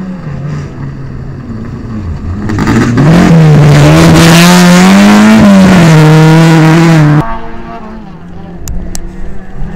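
Rally car engine at high revs on a dirt stage. A car's engine is heard faintly at first. Then a car passes close at full throttle, its engine pitch rising and then falling, with a spray of dirt and gravel. This sound cuts off abruptly about seven seconds in, leaving a fainter engine further off and a couple of sharp ticks.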